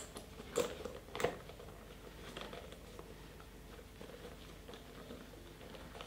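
Handling of a rubberized-canvas SVT-40 magazine pouch as it is closed, its leather tab worked over a metal stud: two light clicks about half a second and a second in, then faint rubbing and tapping.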